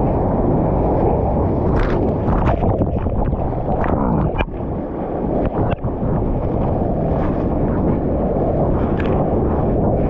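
Ocean water rushing and churning, a heavy low rush with a few sharp splashes scattered through it.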